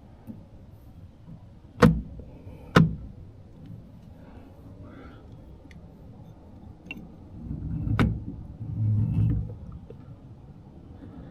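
Hand work on a Yamaha outboard's shift linkage: two sharp metallic knocks about a second apart, then, around eight seconds in, another knock with a run of low, muffled thuds.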